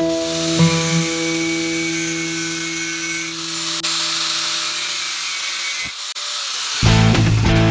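Background guitar music: a held chord fades out and drops away about six seconds in, and a loud new strummed passage starts near the end. Under it runs a steady hissing, rubbing noise.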